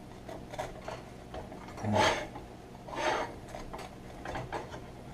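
Metal fork cutting through a baked pasty's crust on a ceramic plate: soft scraping with light clicks of the fork against the plate, and short louder scrapes about two and three seconds in.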